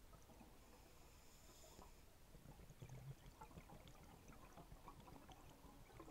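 Near silence: a faint underwater background of small scattered crackles over a low rumble.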